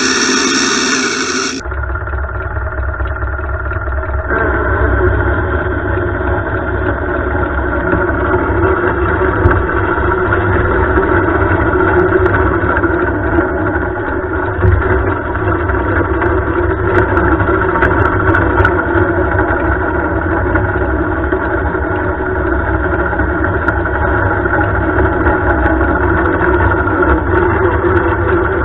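A lawn tractor's engine idling steadily while the tractor sits stuck in a creek, starting about two seconds in and growing a little louder a couple of seconds later.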